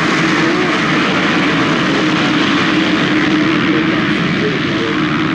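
Piston-engined warbird flying overhead, its propeller engine noise a loud, steady drone.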